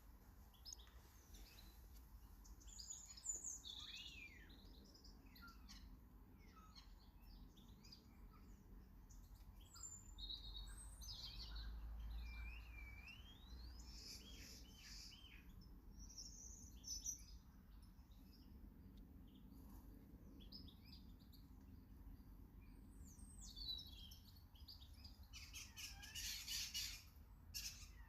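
Small garden birds chirping and calling, faintly, with short notes and sweeping phrases throughout and a busier flurry of calls near the end, over a low rumble.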